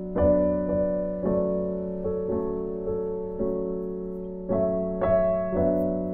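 Background piano music: a gentle, slow piece with sustained chords struck about once a second.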